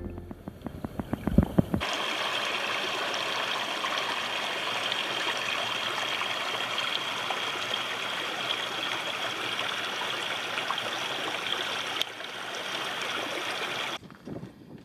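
Small mountain stream trickling steadily over rocks. For about the first two seconds it is heard muffled from an underwater camera, with low knocks.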